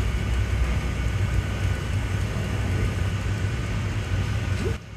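Steady low roar of a glassblowing hot shop's furnace and glory hole burners, cutting off abruptly near the end.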